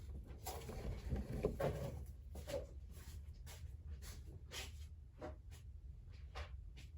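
Scattered light clicks and taps, a dozen or so at uneven intervals, from small parts being handled during wiring work, over a steady low hum.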